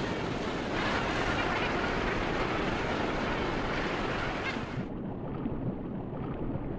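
Ocean surf and wind noise, a steady rushing wash that swells a little about a second in, then changes abruptly near five seconds in to a duller, quieter sound with the hiss gone.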